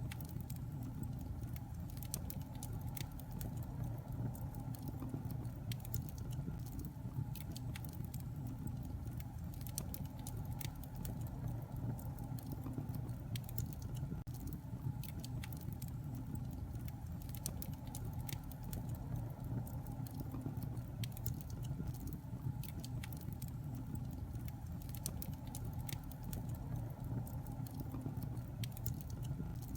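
Wood fire burning in a fireplace: a steady low rush of flames with frequent irregular crackles and pops.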